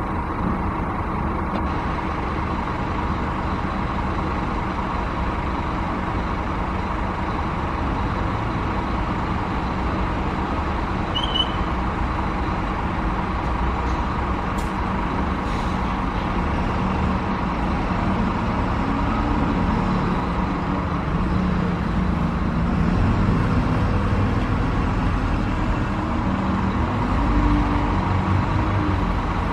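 Steady road traffic noise, with a heavier vehicle's engine growing louder in the last third. A single short high chirp sounds about a third of the way in.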